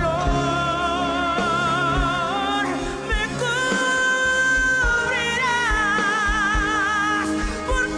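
Christian worship music: a melody of long held notes with vibrato over a full band accompaniment, with low drum beats underneath.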